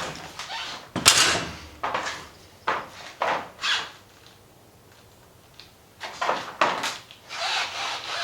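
Hand work at a workbench: an irregular series of short scrapes, rubs and knocks from tools and parts being handled, with a quiet spell midway.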